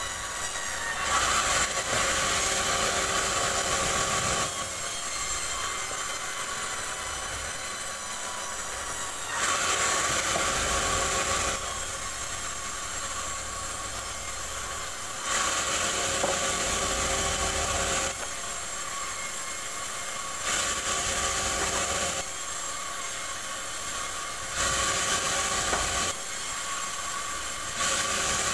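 Sawmill band saw slicing a rubberwood log into boards: the saw runs steadily with a fixed high tone, and each time the log is pushed through the blade the sound swells into a louder rasping hiss of cutting wood, about six cuts of one to three seconds each.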